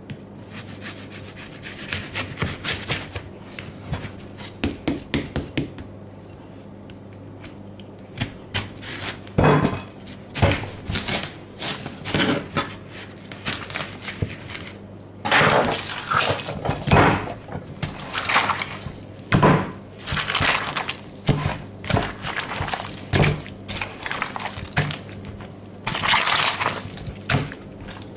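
A knife cutting into a ripe watermelon and hands squashing and digging into its flesh: irregular wet crunches and squelches, sparse at first, then frequent and loud from about nine seconds in.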